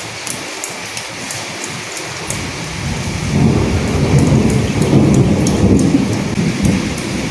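Steady rain with many distinct drops ticking close by. About three seconds in, a low roll of thunder swells up, rumbles for a few seconds and fades near the end.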